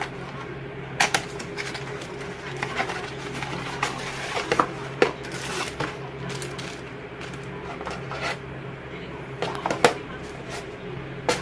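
Irregular clicks and taps from hands handling a tablet and its keyboard, over a steady low hum.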